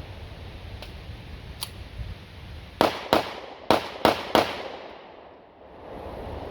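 Five pistol shots in quick succession about three seconds in, fired as part of a timed shooting drill, after two faint sharp ticks.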